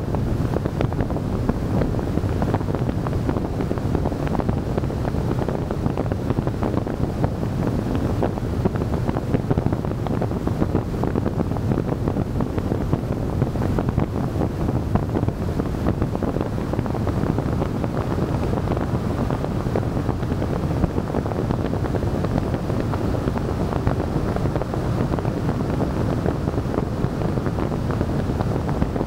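Wind buffeting the microphone of a camera mounted on the bonnet of a moving car: a steady, low rushing noise with road noise beneath it.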